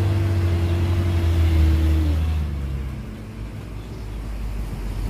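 Heavy diesel engine of construction machinery running steadily. About two seconds in its pitch dips and it drops to a lower, quieter idle.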